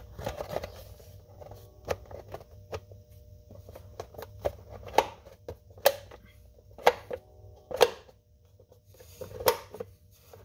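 Hard plastic cover being pushed and snapped into place by hand: a string of sharp plastic clicks and knocks at irregular intervals, about nine in all.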